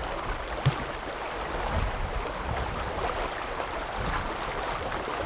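Shallow river water running steadily over stones, with one faint knock less than a second in.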